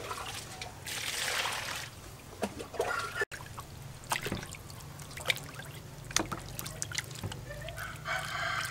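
Hands washing raw meat in an aluminium basin of water: water splashing and trickling, with small clicks and knocks as the meat is handled. A rooster crows in the background near the end.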